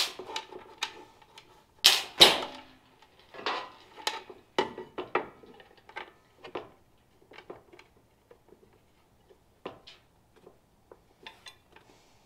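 Irregular clicks, clinks and knocks of a mounting bracket and its hardware being handled and fitted onto the side of a cab heater's housing on a workbench, with two louder knocks about two seconds in and sparser ticks after.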